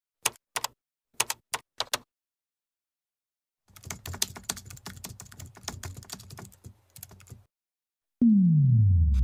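Keyboard typing sound effect: a few single key clicks, then a fast run of typing. Near the end a sudden loud sound effect sets in with a tone sliding down in pitch and carries on steadily.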